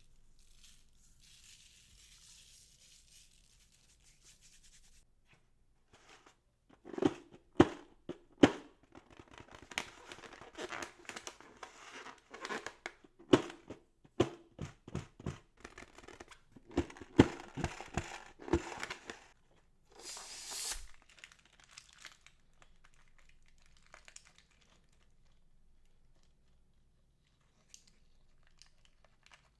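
Slime being squished and pulled apart by hand: bursts of crackling with many sharp pops and clicks, then a short hiss about twenty seconds in.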